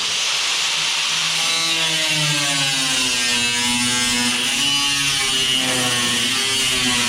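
Power cutting tool cutting into the sheet-steel front quarter panel of a car body. It starts abruptly and runs steadily with a high hiss. Its motor note sags and recovers as the cut loads it.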